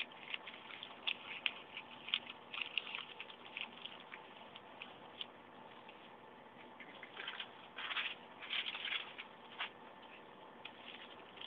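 Newspaper being folded and creased by hand: irregular crinkling and rustling of the paper, busiest in the first few seconds and again with a burst from about seven to nine and a half seconds in.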